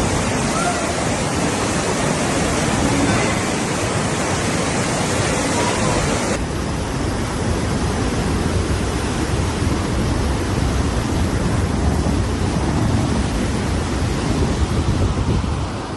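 Steady rush of floodwater. About six seconds in the sound changes abruptly to a duller rush with much less hiss.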